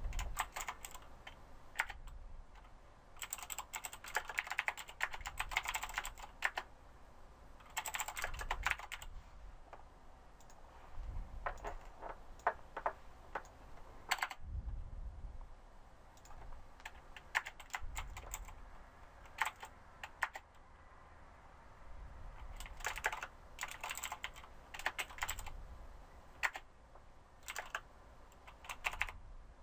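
Computer keyboard typing in irregular bursts of rapid key clicks with short pauses between.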